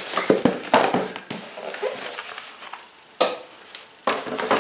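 Thick cardboard box being handled and opened: a cluster of knocks and scrapes, then soft rustling, with a sharp knock about three seconds in and another near the end.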